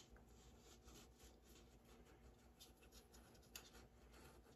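Near silence, with faint scratchy rubbing of a small wax-painting iron sliding over wax on card, and a soft tick about three and a half seconds in.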